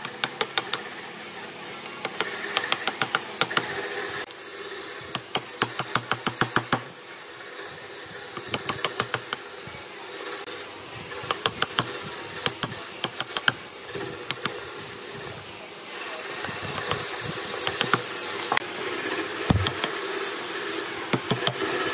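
Woodworking tool work: bursts of rapid sharp taps, several a second, come in short clusters again and again, over a steady hiss.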